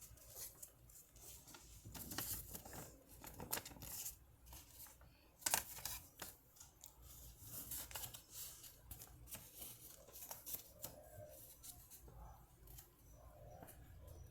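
A sheet of paper being handled and folded by hand into a paper airplane: quiet, irregular rustling and crinkling with sharp crackles, the loudest about five and a half seconds in.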